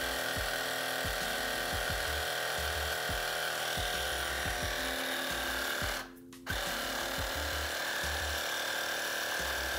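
Carywon portable cordless air compressor running steadily as it pumps up a basketball, cutting out about six seconds in and starting again half a second later: its auto shut-off stops the pump each time the pressure reading reaches the 20 PSI setting.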